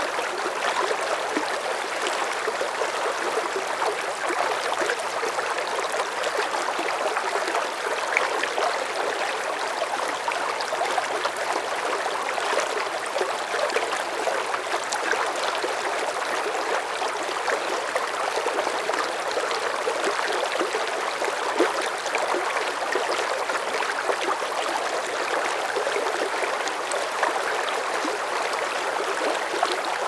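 A river's current at medium strength: a steady rush of flowing water, with little splashes scattered through it.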